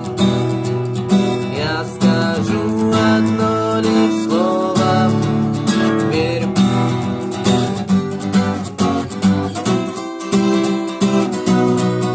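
Acoustic guitar playing an instrumental passage: strummed chords under a melody line that slides between notes.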